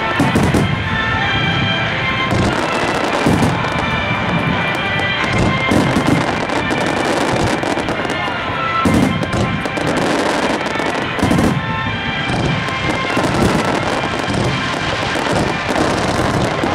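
Aerial firework shells bursting one after another, every second or two, with music playing underneath.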